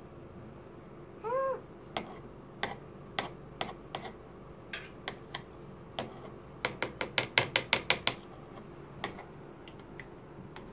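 Metal teaspoon clinking against a small drinking glass of borax water as it is stirred and scooped: single clinks about every half second, then a quick run of about ten clinks a little past the middle. A brief high squeak a little over a second in.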